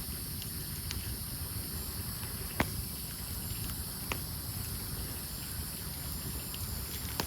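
Campfire of burning logs crackling, with a few sharp pops, the loudest about two and a half seconds in, over a steady high drone of night insects.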